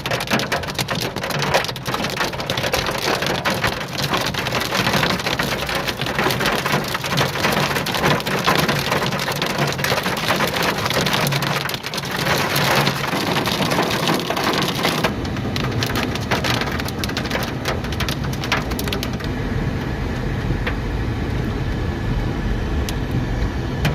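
Torrential rain mixed with hail pelting down, a dense clatter of hits. About two-thirds of the way through the high clatter eases and a deep, steady low rumble takes over.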